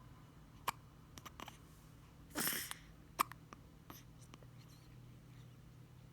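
Baby hiccuping: two short, sharp hiccups about two and a half seconds apart, with fainter clicks and a brief breathy noise between them.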